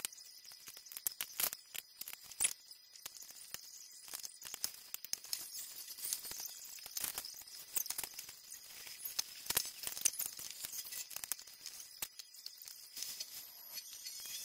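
LEGO bricks being handled and pressed together: irregular small plastic clicks and taps.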